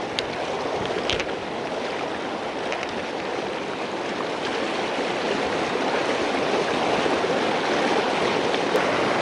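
Fast river rapids rushing over rocks in a steady wash of white noise that grows gradually louder, with a couple of faint clicks about a second in.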